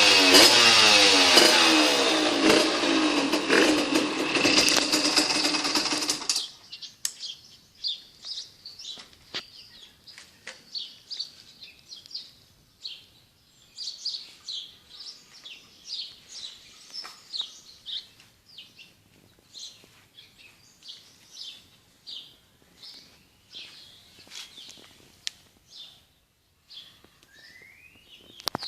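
Restored Puch Condor 3's 49cc reed-valve two-stroke engine, with a 21 mm Dellorto carburettor and Yasuni expansion pipe, revving up and down in repeated blips, then stopping suddenly about six seconds in. Small birds chirp repeatedly for the rest of the time.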